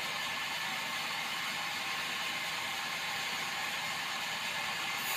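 Large band sawmill running steadily, its blade spinning as the log carriage moves up to it. Just before the end the sound turns brighter and hissier.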